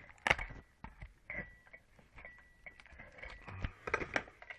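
Irregular clicks and knocks of tools and metal parts being handled while a washing machine motor is taken apart by hand, the sharpest knock about a third of a second in and a quick run of them near the end.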